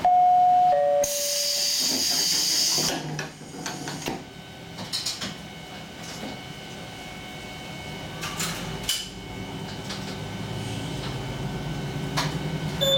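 A two-note falling chime on a stopped diesel railcar, followed by about two seconds of loud compressed-air hiss. After that come scattered clicks and knocks over the low, steady hum of the idling diesel engine, which grows slightly louder near the end.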